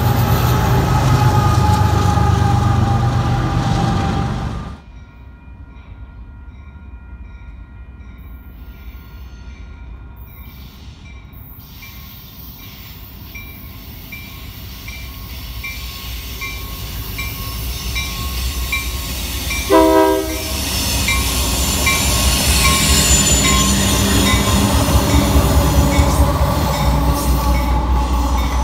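BNSF diesel locomotives rumbling past close by; after a sudden cut the sound drops to a quieter background with a bell dinging about twice a second. About twenty seconds in, a Union Pacific locomotive gives one short horn blast, and its engine rumble then grows louder as it draws near.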